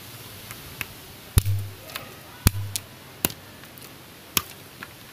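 Bolo knife chopping a slender green bamboo pole held against a stone: four sharp chops about a second apart, the first two with a short low thud after them, and a few lighter taps between.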